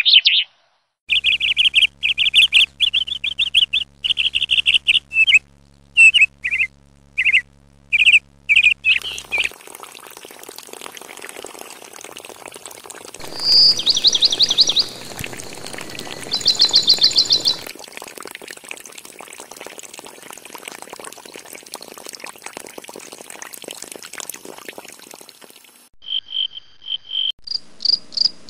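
Birds chirping in quick high calls for the first several seconds. Then comes a steady hiss with two short buzzy insect trills, and near the end a cricket chirps in even, rapid pulses.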